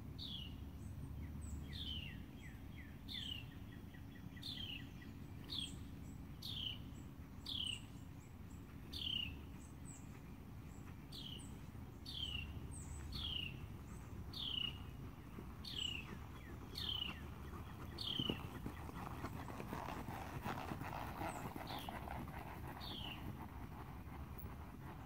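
A songbird repeating a short downward-slurred whistle about once a second, stopping about two-thirds through with one more call near the end. Underneath, a steady low rumble and the soft hoofbeats of a horse moving on arena sand.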